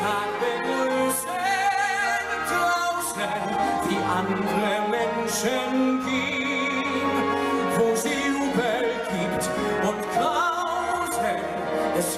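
A man singing a musical-theatre ballad live into a microphone, backed by a band with flute, trumpet and bass guitar.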